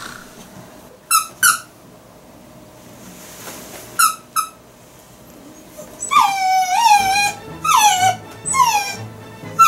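Miniature dachshund giving a few short yips, then from about six seconds in whining over and over in longer cries that fall in pitch. This is an anxious dog crying for attention.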